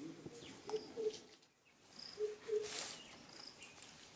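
Faint background birds: a few short high chirps and pairs of short low cooing notes.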